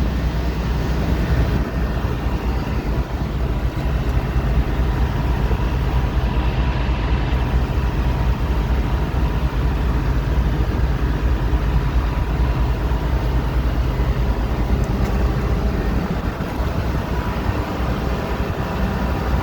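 Steady city street traffic: a constant low rumble of vehicles on a busy avenue, with no single pass standing out.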